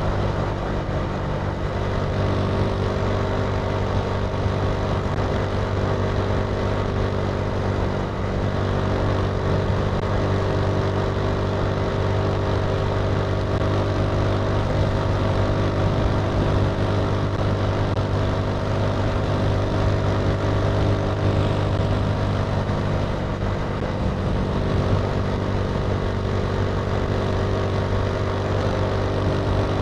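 Italika TC300 motorcycle engine running at a steady pace, its pitch holding level with no shifts or revving.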